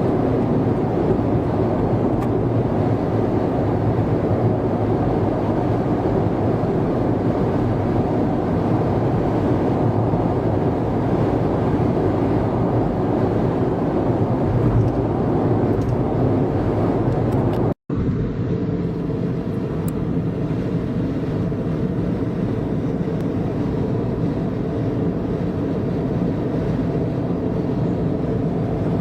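Steady road and engine noise inside a car's cabin cruising on an expressway. It cuts out for a split second about two-thirds of the way through, then carries on a little quieter and more even.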